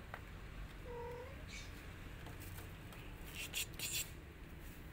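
A tabby kitten gives one short meow about a second in. Near the end come a few short scratchy rasps, the loudest sounds here.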